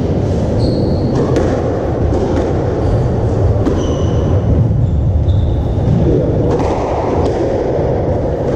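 Scattered sharp knocks of a squash ball striking racket, walls and wooden floor, with a few short high squeaks of court shoes, over a loud steady low rumble in a large echoing hall.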